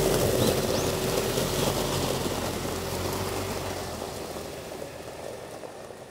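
Jeep Wrangler driving slowly along a gravel track, its engine running steadily as the tyres roll over gravel. The sound fades out gradually over the last few seconds.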